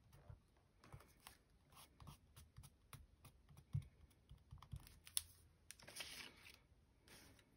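Quiet taps and clicks of fingertips and long fingernails pressing and smoothing glued collage paper onto a sketchbook page, with a brief rustle of paper being handled near the end.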